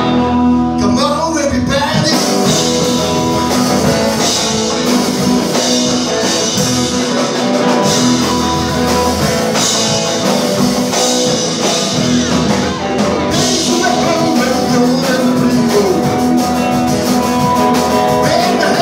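Live rock and roll band playing: upright double bass, hollow-body electric guitar and drum kit, picked up close and loud in a small club.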